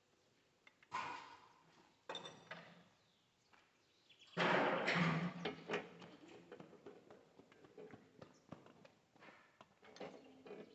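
Wrench work on a tractor diesel engine's cylinder head: scattered metal clicks and knocks of a combination spanner on bolts. A louder, noisier burst about four seconds in lasts a little over a second.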